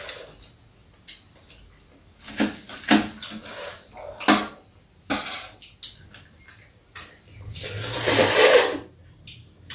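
Ramen noodles from a bowl of budae jjigae being slurped, one long loud slurp about eight seconds in. Earlier come a few short eating and utensil sounds.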